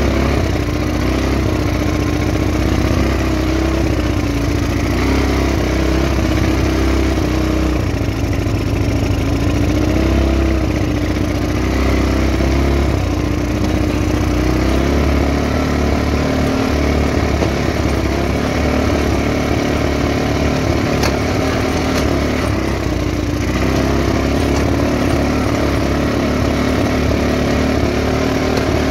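Off-road vehicle engine running steadily, its pitch rising and falling every few seconds with the throttle, over a deep low rumble.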